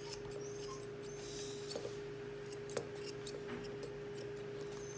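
Grooming scissors snipping the hair around a dog's front foot, a scattered run of short sharp snips as the foot is bevelled round. A steady low hum runs underneath.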